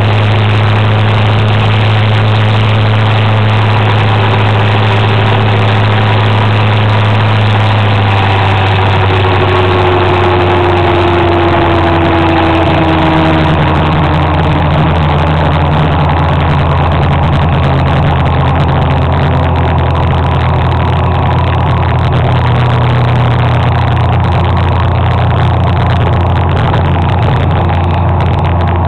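Motor scooter engine running steadily while riding, over a continuous rush of wind and road noise. The engine note changes pitch about eight seconds in and again around thirteen seconds, with a few falling tones in between.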